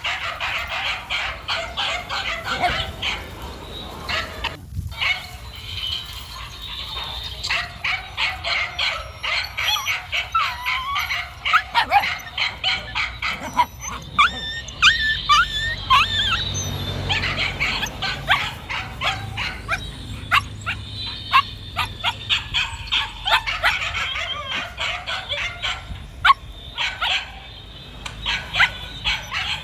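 A dog yipping and barking in rapid runs of short, high-pitched calls, with a few whining calls that bend in pitch about halfway through.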